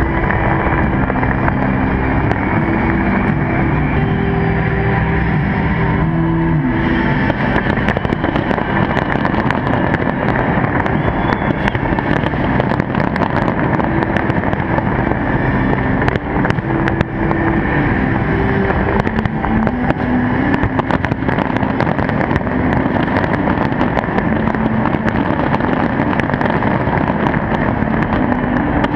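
Dense barrage of fireworks: a continuous rumble of bursts with many sharp bangs and crackles, with held musical notes underneath at times.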